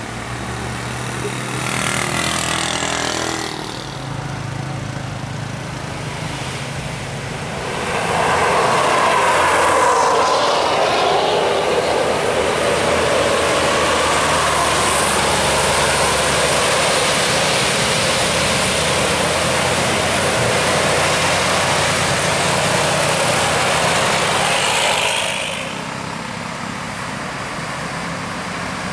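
Tour bus passing close on the road. An engine hum for the first few seconds, then a loud, steady rushing noise swells about eight seconds in and falls away near the end.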